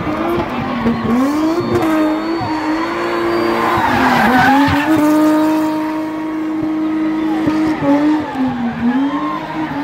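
BMW M20 straight-six held at high revs during a spin, the revs dipping briefly and climbing back about three times, with tyres squealing and scrubbing, loudest around the middle.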